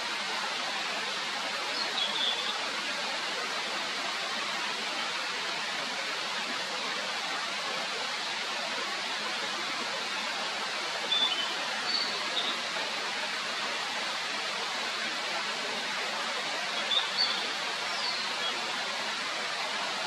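Steady rushing of a mountain stream, with a few short, high bird chirps about two seconds in, a cluster around the middle, and again near the end.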